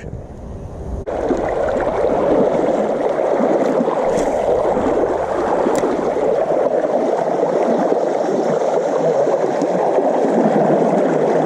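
Fast-flowing creek water rushing steadily over rocks in heavy current. The sound starts abruptly about a second in.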